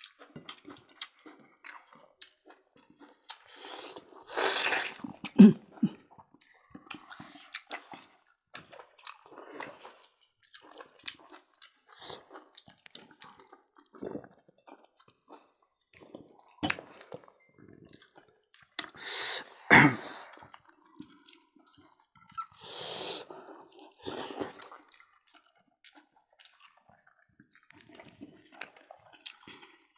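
People eating by hand at close range: wet chewing and lip-smacking of roast pork, with scattered small clicks and a few louder, sharper mouth sounds about 5, 20 and 24 seconds in.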